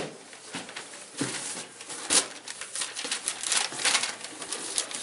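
Paper slips rustling and crinkling as they are drawn out of a box and unfolded, in a string of irregular rustles.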